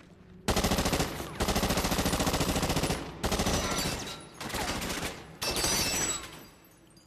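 Rapid, sustained gunfire in five bursts separated by short pauses, stopping about six seconds in.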